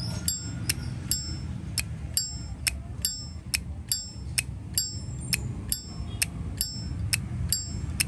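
Zippo lighter lid being flicked open and snapped shut over and over, sharp metallic clicks about two or three a second, many with a short bright ring of the brass case. A steady low rumble runs underneath.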